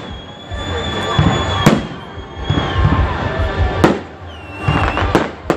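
Fireworks display: three sharp bangs of bursting shells, about a second or two apart, with long high steady whistles between them.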